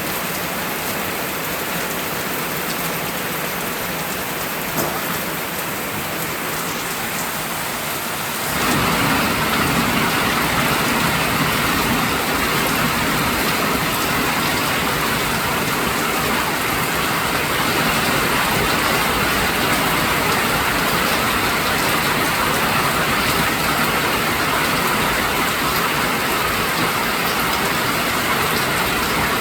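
Steady rain falling. About a third of the way in it turns suddenly louder and fuller, with a deeper low rush underneath, and stays that way.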